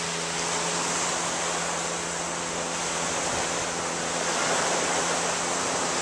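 A steady rushing hiss of open-air shoreline noise, with a low, steady motor hum underneath. It grows a little louder about four and a half seconds in.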